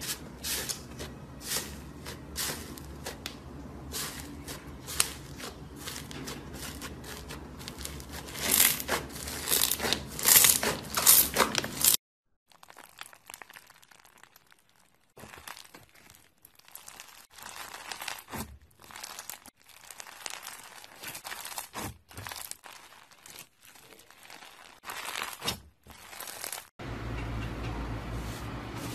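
Slime being squeezed and worked by hand, making a run of sharp crackling clicks and pops. About twelve seconds in it cuts to a quieter stretch of sparser clicks, and a steady low hum comes in near the end.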